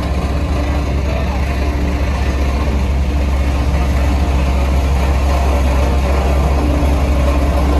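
Heavy diesel construction machinery running steadily, with a deep, constant engine rumble and a steady hum that drops out for a few seconds in the middle, then returns.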